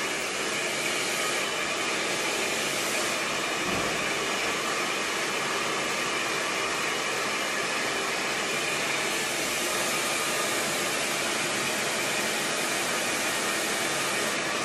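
Handheld hair dryer running steadily, a constant rush of air with a faint motor whine, blowing into a section of hair held up on a round brush.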